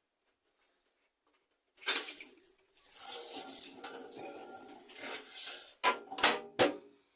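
Metal clattering and scraping of tools against tap fittings, starting about two seconds in and ending with three sharp clanks.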